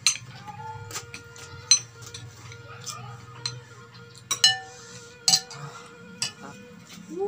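Metal spoons clinking against glass bowls and a glass plate while eating: about a dozen sharp, scattered clinks, some with a brief ring, the loudest about a second and a half in.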